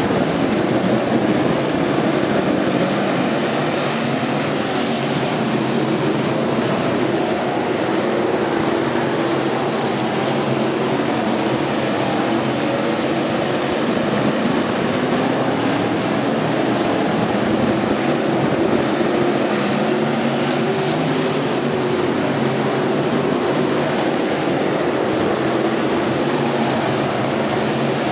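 Several dirt-track stock car engines running around the oval together: a steady, blended engine drone whose pitch wavers up and down as the cars lap.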